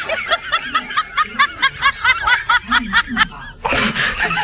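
High-pitched, rapid cartoon-style laughter sound effect, a quick run of short "hehehe" notes about five or six a second, which stops about three seconds in. A brief burst of rushing noise follows near the end.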